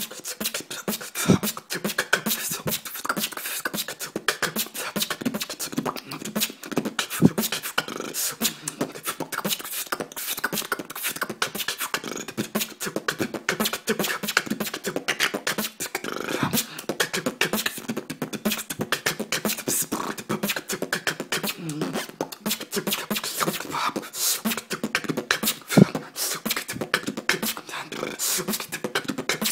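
Solo human beatboxing: a fast, unbroken stream of mouth-made drum hits and clicks, with pitched hummed lines bending up and down in places.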